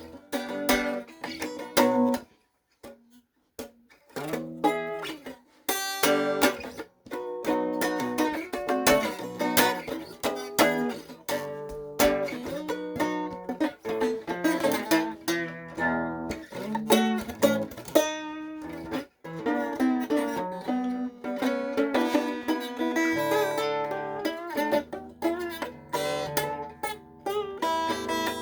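Soft instrumental music on a plucked string instrument, picked notes and chords, with a short pause about three seconds in.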